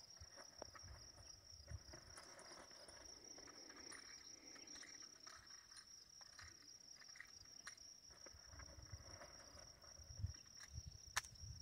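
Near silence filled by a steady, high-pitched buzz of insects in the grass, with a few faint clicks near the end.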